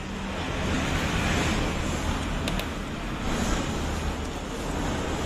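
Road traffic going by: motor vehicle noise that swells about a second in and slowly eases off.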